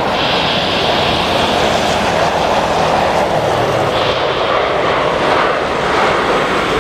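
Sriwijaya Air Boeing 737-800 landing: its CFM56-7B jet engines make a steady loud rushing noise, mixed with heavy rain.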